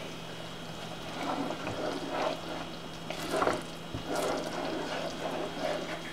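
A spoon stirring thick Parmesan cheese sauce in an enamel saucepan: a string of irregular wet scraping strokes as the sauce thickens.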